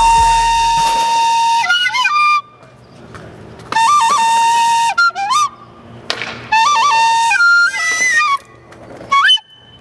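A small plastic recorder played in three short phrases, each a quick turn of notes that settles on a held note, with pauses between them; the first held note lasts well over a second. A deep bass from the preceding song fades out in the first second.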